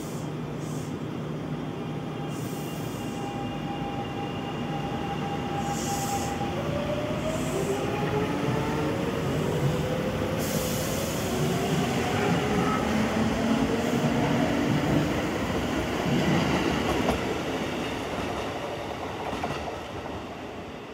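Kintetsu 1031 series four-car electric train pulling away: its traction motors whine in several tones that rise in pitch as it accelerates, over growing wheel and rail noise that is loudest past the middle and fades near the end. A few short bursts of hiss come in the first half.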